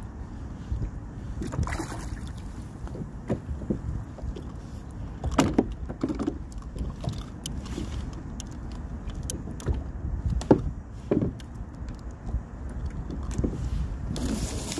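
Steady low wash of water and wind around a fishing kayak, with irregular clicks and knocks of fishing gear being handled as a fish is reeled in and brought aboard. The sharpest knocks come about five and ten seconds in.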